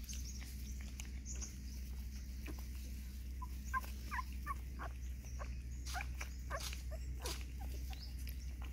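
Nursing puppies giving short, high squeaks and whimpers as they suckle, with a few faint clicks. The squeaks start about halfway through and come thickly for several seconds.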